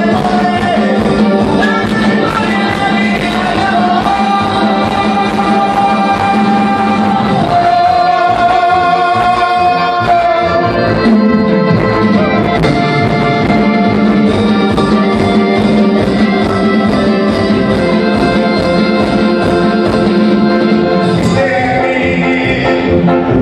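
Karaoke backing track playing loud through a club sound system, with singing over a steady beat and one long held note about halfway through.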